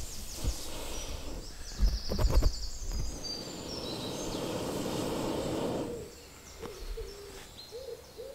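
Breath blown through a fire blow tube into campfire embers: a steady breathy rush lasting about three seconds in the middle, coaxing the smouldering fire into flame. Birds chirp early on, and a low bird call repeats near the end.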